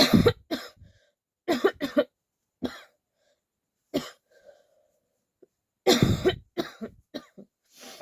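A person coughing repeatedly in short fits, single coughs between, and a longer fit about six seconds in; the person has a head cold.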